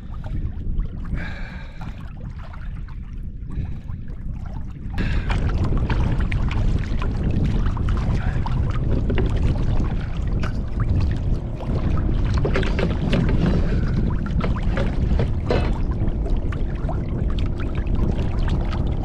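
Water sloshing and splashing against a fishing kayak, with small knocks on the hull. It gets louder about five seconds in and then runs steadily.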